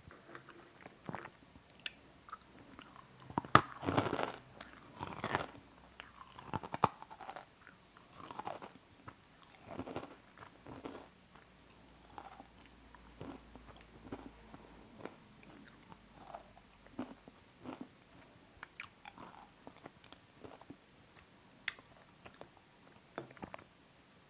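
Close-up eating: a person biting and crunching a nutty sweet, with the loudest crunchy bites about three to seven seconds in, then softer, steady chewing.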